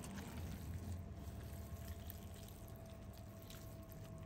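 Tender roasted meat being torn and shredded by hand in rubber gloves: soft, wet squishing and faint crackles over a steady low hum.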